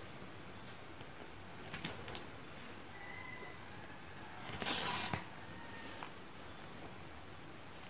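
Handwork at a bead-embroidery frame: a couple of light clicks about two seconds in, then a short scratchy rustle about five seconds in as the hand draws the thread and moves over the taut fabric.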